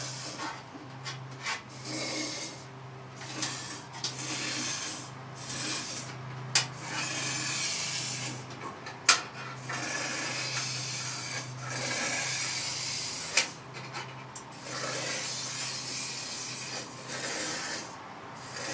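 Aerosol spray fired through an extension wand into a body cavity in repeated long hissing bursts, each a few seconds long. The bursts are broken by short pauses and a few sharp clicks, over a faint steady low hum.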